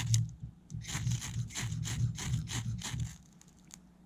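Reamer of a Victorinox Forester Swiss Army knife scraped repeatedly along a ferrocerium rod to throw sparks, about three strokes a second, stopping about three seconds in.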